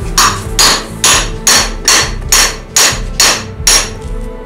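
A hammer striking the ball joint in a Mercedes W126 front steering knuckle clamped in a vise: nine sharp metal-on-metal blows a little under half a second apart, each with a metallic ring. The ball joint is sitting skewed in its bore.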